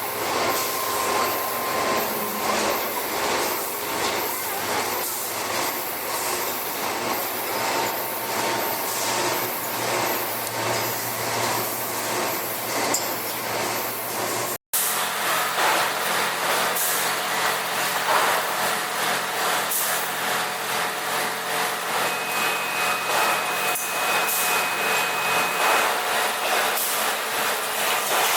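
TDF1800 tire shredder running, a steady grinding, rumbling machine noise with faint squealing tones. It breaks off for an instant about halfway through and resumes with a slightly different tone.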